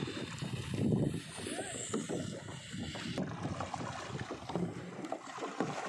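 Wind buffeting the microphone in uneven gusts over choppy lake water, with the water lapping around the kayaks as they are paddled.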